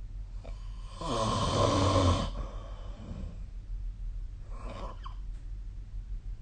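A sleeping person snoring: one loud snore about a second in, lasting just over a second, then a second, fainter and shorter snore near five seconds.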